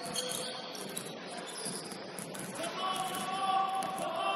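Basketball shoes squeaking on a hardwood gym floor during play: a few short high squeaks, then a longer drawn-out squeal in the second half, with light scuffs and footfalls.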